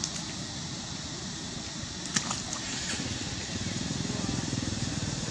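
A small engine running, with a fast low pulsing that grows louder in the second half; a sharp click about two seconds in.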